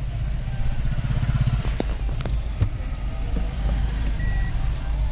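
Kia Carnival minivan heard from inside the cabin in reverse: a steady low engine and road rumble, a few light clicks, and one short beep about four seconds in.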